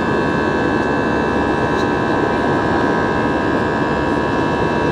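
Steady cabin noise of a jet airliner climbing after takeoff, heard inside the cabin: a constant rush of engines and airflow with a few steady tones running through it.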